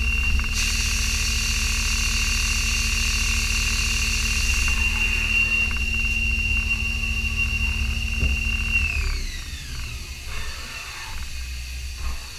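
Haas ST-20SSY CNC lathe turning stainless steel bar stock: a steady high spindle whine over a low hum, with a hiss for the first few seconds. About nine seconds in, the whine glides down in pitch and the machine grows quieter as the spindle slows.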